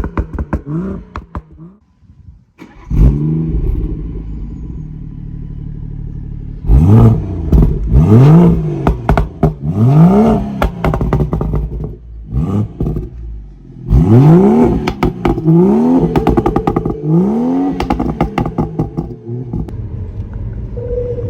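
BMW 340i's B58 turbocharged straight-six revved up and down again and again in quick blips, crackling and popping from the exhaust as the revs drop. There is a brief silence about two seconds in.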